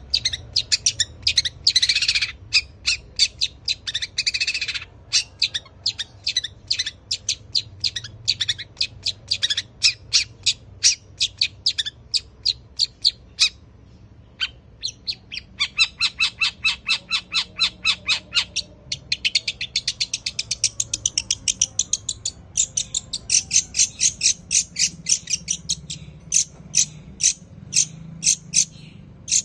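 Long-tailed shrike (cendet) singing a long run of sharp, rapid chirping notes, sparrow-like in its mimicry. The song breaks off briefly about halfway, then comes back faster and denser.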